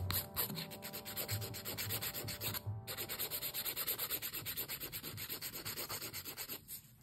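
A hand-held nail file rasping rapidly back and forth over an acrylic nail, many strokes a second, shaping the fresh acrylic. The strokes break off briefly a little under three seconds in, resume, and stop just before the end.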